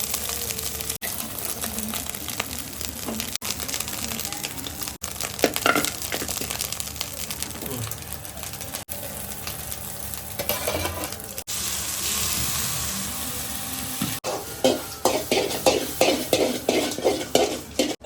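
Food sizzling as it fries in a pan and is stirred, in several short clips joined by abrupt cuts. In the last few seconds a rhythmic run of knocks, about two to three a second, comes in.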